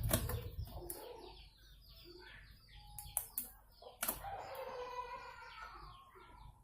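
Chickens clucking in a quick series of short calls, with a few sharp clicks or knocks from handling parts, one near the start and a few around three to four seconds in.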